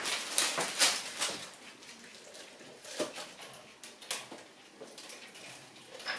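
Shiba Inu puppies scampering and tussling on a hard floor: quick irregular clicks and scuffles of paws and claws. The clicks are busiest in the first second or so, with further bursts about three and four seconds in.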